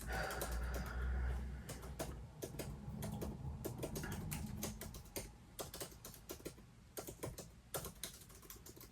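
Typing on a computer keyboard: quick, uneven runs of key clicks as tasks are typed in, with a low rumble in the first second or so.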